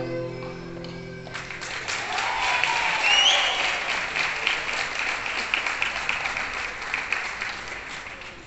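A crowd applauding, starting about a second and a half in and slowly thinning out toward the end, with a cheer and a rising whistle about three seconds in. Music plays in the first second or so before the clapping.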